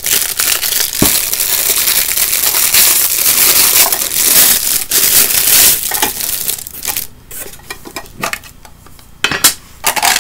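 Plastic shrink-wrap crinkling and tearing as it is peeled off a small metal tin, loud and continuous for about six seconds. It then gives way to quieter handling, with a few sharp clicks near the end.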